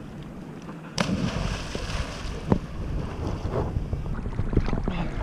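A person plunging feet-first into lake water with a sudden splash about a second in, followed by water churning and sloshing around the boat, with some wind on the microphone.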